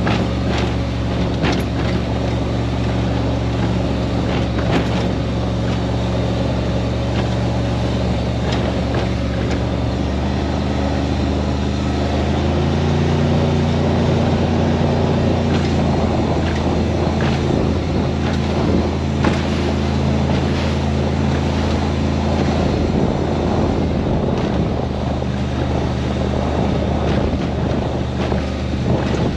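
A 27-foot Baja powerboat's engine running steadily under way, with water and wind noise. About halfway through the engine note rises a little as it picks up revs, then partly settles.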